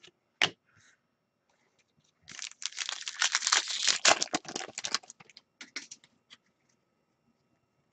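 Foil wrapper of an Artifacts hockey card pack being torn open and crinkled by hand, a dense crackling from about two seconds in that thins to a few scattered crinkles, with a single click near the start.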